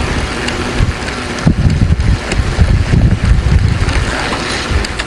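Wind buffeting the microphone: an uneven, gusty low rumble over a faint outdoor hiss.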